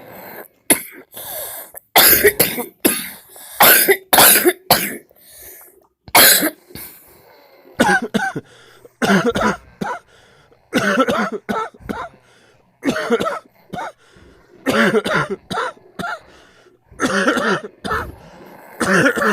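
A man coughing repeatedly in short clusters of two or three loud, harsh coughs, some with a hoarse voiced edge, with brief pauses between them.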